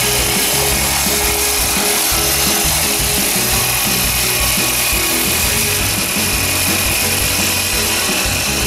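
Small brush-cutter-type petrol engine running flat out, driving a 4-inch pipe water pump, with the rush of water pouring from the outlet, under background music.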